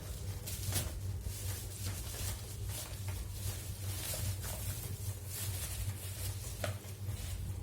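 Cardboard and plastic packaging being opened and handled as the box for a small electric face and nose steamer is unpacked: irregular rustles, scrapes and crinkles, over a steady low hum.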